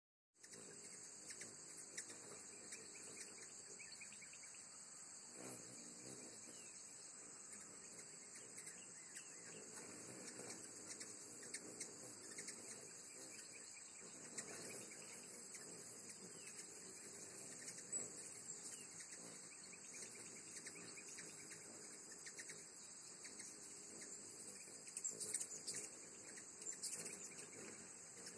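Steady, faint, high-pitched chorus of insects that goes on without a break, with faint short chirps here and there.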